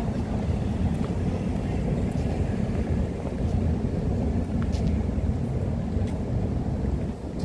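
Wind buffeting the microphone, an uneven low rumble throughout, with a few faint ticks over the outdoor street ambience.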